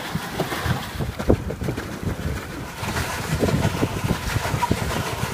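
Pedal boat being pedalled: its paddle wheel churning the water, with wind rumbling on the microphone and irregular low knocks.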